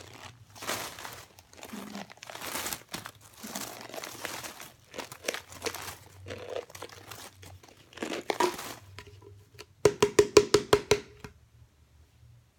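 Plastic bag crinkling and rustling in irregular strokes while a canister of cornstarch chunks is handled and powder is shaken out. About ten seconds in, a quick run of about ten sharp knocks with a ringing tone comes from the canister.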